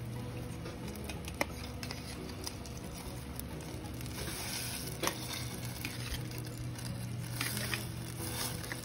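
A steel pot of soda, butter, onion and garlic bubbling at the boil, with a few sharp clicks as mussels are pushed in from a bowl with a metal ladle: once about a second and a half in, once about five seconds in, and several near the end. A low steady hum runs underneath.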